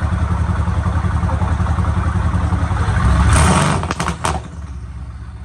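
Car engine running with a steady low rumble, then revved hard about three seconds in, followed by a quick string of sharp exhaust pops and crackles as the throttle is released. It then settles back to a quieter steady drone.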